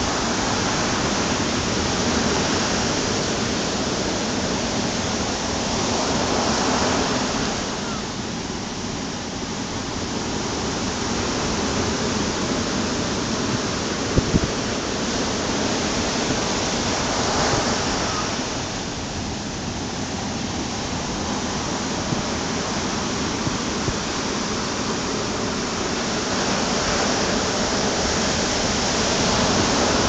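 Ocean surf breaking and washing up a sandy beach: a continuous rush of foaming water that swells and eases, with a surge roughly every ten seconds.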